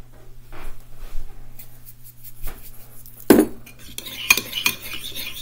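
Metal spoon in a ceramic bowl: a few faint clicks, one sharp knock a little past three seconds in, then the spoon scraping and clinking steadily against the bowl as a thick labneh sauce is stirred.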